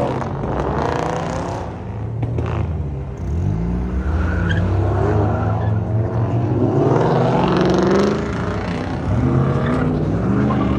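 Car engines accelerating, rising in pitch about three seconds in and again near the eight-second mark, as cars on a cruise pull away.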